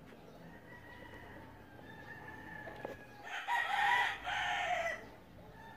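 A rooster crowing once, a single crow of about a second and a half that starts about three seconds in, with a short break near its middle.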